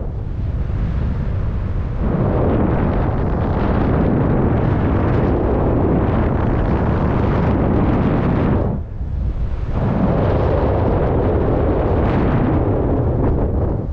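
Airflow buffeting the camera microphone of a paraglider in flight: a loud, rough rumble of wind noise, easing briefly about nine seconds in.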